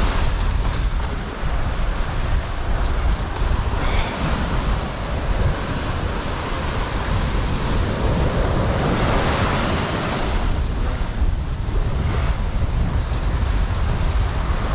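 Ocean surf washing and surging, louder in a couple of swells, with wind buffeting the microphone.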